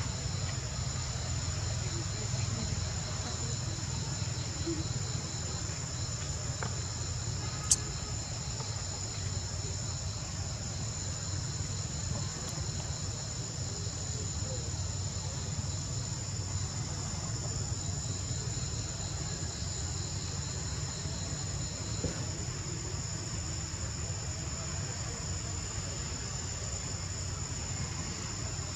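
Steady chorus of insects buzzing in several high, unbroken tones over a low constant rumble, with a single sharp click about eight seconds in and a fainter one later.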